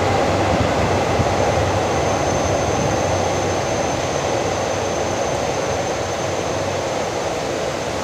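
Passenger train's coaches rolling out along the platform, the train noise slowly fading into a steady rush of rain and wind. A faint thin high tone holds through most of it.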